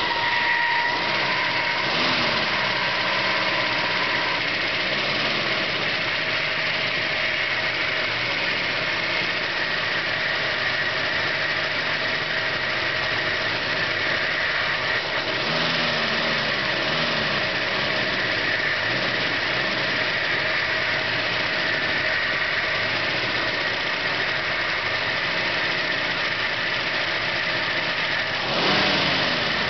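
1968 Ford Mustang V8 running at idle, its pitch rising and falling briefly a few times. The engine has just been started for the first time after sitting for years, and its fuel pump is only now drawing up fuel.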